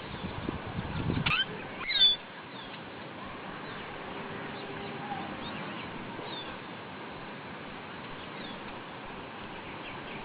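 Small birds chirping: a few loud, sharp chirps about two seconds in, then faint, scattered chirps. A low rustle at the start stops after about a second.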